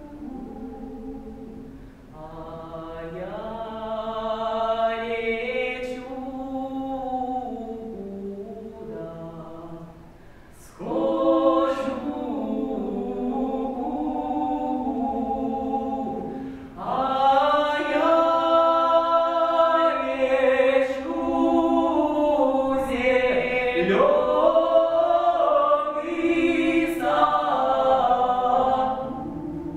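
A man and a woman singing a Russian folk song as a duet, in long held phrases with short pauses for breath; the singing grows louder about ten seconds in and again partway through.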